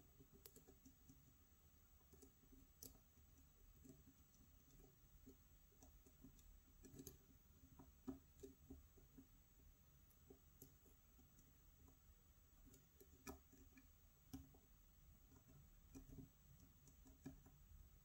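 Faint, irregular clicks of a metal hook pick working the pins inside a pin-tumbler challenge lock, with the lock held under tension. The pins are not yet set: the lock is still closed.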